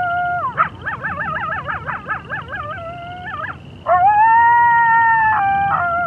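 Wolves howling: a long howl ending just after the start, then a quick wavering, yipping stretch with about four pitch wobbles a second, then another long, steady howl about four seconds in that drops in pitch as it ends.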